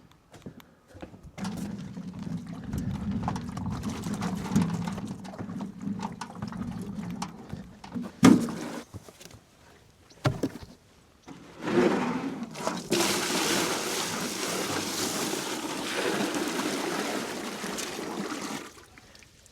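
Water running and splashing into a container in two spells, the second louder and hissier and stopping suddenly near the end, with a couple of sharp knocks between them.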